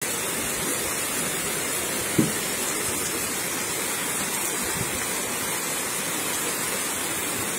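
Torrential downpour: heavy rain and running water making a steady rushing hiss, with a brief low thump about two seconds in.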